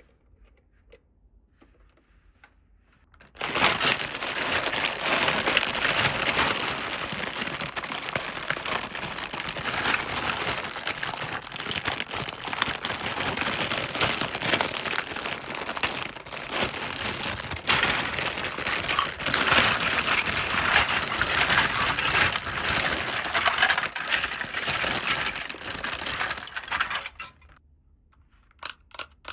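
Plastic packaging crinkling continuously as it is handled and crushed, with dense fine crackles. It starts abruptly about three seconds in and stops abruptly near the end.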